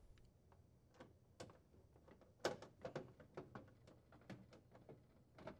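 Hand screwdriver driving screws into a refrigerator's plastic water reservoir access panel: a run of faint, irregular clicks and ticks, the loudest about two and a half seconds in.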